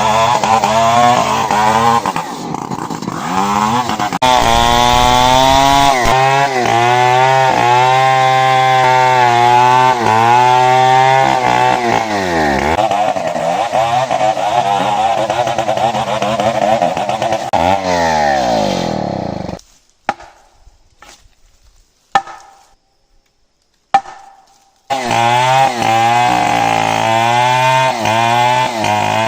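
Chainsaw cutting meranti wood at high revs, its pitch dipping and recovering again and again as the chain loads up in the cut. About two-thirds of the way through the sound breaks off for several seconds, with only a few short blips, then the saw comes back at full cutting speed.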